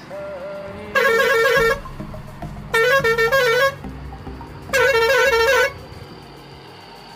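Three loud blasts of a warbling vehicle horn, each about a second long, its pitch wobbling rapidly up and down, over a low hum.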